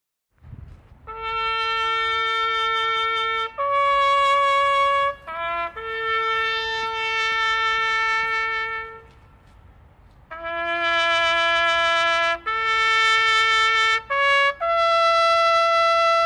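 Military honour-guard trumpeter playing a solo ceremonial memorial call on trumpet: slow phrases of long held notes, with a brief pause about two-thirds of the way through.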